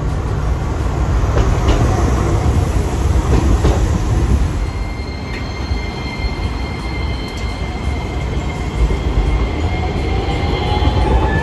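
Hiroden low-floor articulated tram running close past on street track, a steady rumble of wheels on rail. From about halfway, steady high-pitched wheel squeal sets in, and near the end a whine rises slowly in pitch as the tram picks up speed.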